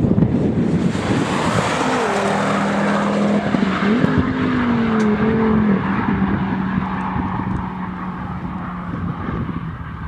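Ford Focus RS with a Mountune exhaust, its turbocharged five-cylinder engine giving a steady droning exhaust note as the car drives along the road. The pitch rises and falls briefly about four seconds in, and the note fades as the car pulls away. Wind rumbles on the microphone in the first couple of seconds.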